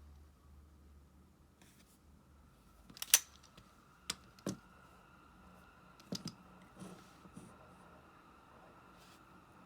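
Sharp clicks and taps of small metal parts and tools as an ABU Ambassadeur 5500C baitcasting reel is worked on by hand: a loud one about three seconds in, then a handful more over the next few seconds, over a faint steady hum.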